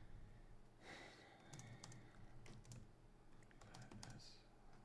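Faint typing on a computer keyboard: quiet key clicks coming in a few short runs.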